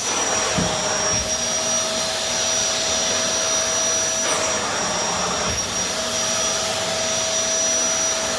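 Hitachi CV-950F vacuum cleaner running steadily: a constant rush of air with a steady motor hum and a high whistle, and a few light knocks.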